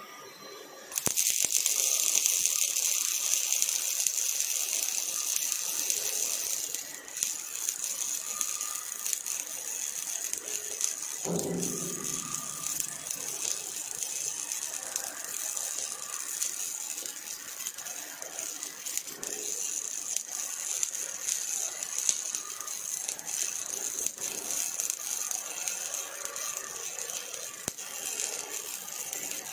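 Robotic MIG welding arc from an OTC welding robot, struck about a second in and then crackling and hissing steadily with spatter as it lays a bead on a steel frame. A brief low thud sounds about eleven seconds in.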